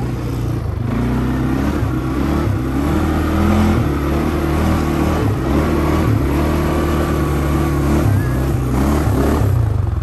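Quad bike (ATV) engine running under load as it is driven over soft sand dunes, its pitch rising and falling with the throttle.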